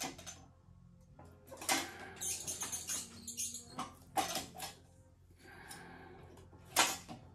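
Cowboy CB-4500 harness stitcher sewing leather in short spurts: a quick run of ticks about two seconds in, scattered clicks and knocks, and one sharp clack near the end, over a faint steady hum.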